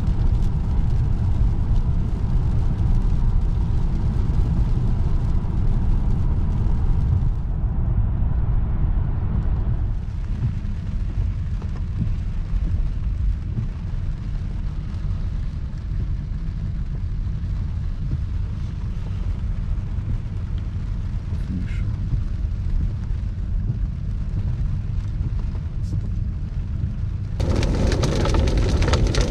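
Low, steady road and drivetrain rumble inside the cabin of a Mercedes S350d diesel saloon, its character shifting a few times. Near the end, a loud hiss of rain on the car sets in over the rumble.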